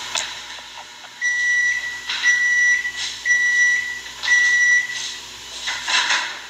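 Four electronic beeps, one about every second, each a steady high tone lasting just over half a second. There are brief rustles of handling near the start and again near the end.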